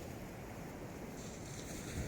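Wind rumbling on the microphone over the wash of waves on the shore. A faint hiss joins in higher up a little past halfway.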